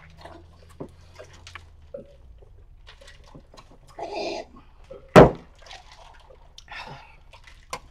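People drinking: sipping and slurping through a straw and swallowing, with scattered small clicks and one sharp knock a little after five seconds in.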